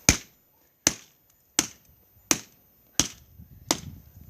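Six sharp, evenly paced blows, about one every 0.7 seconds, of a hand tool smashing a broken tablet.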